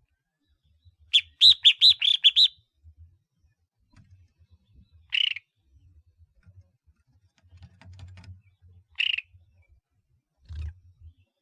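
Collared finchbill singing: a quick run of about seven bright chirps about a second in, then two single calls several seconds apart.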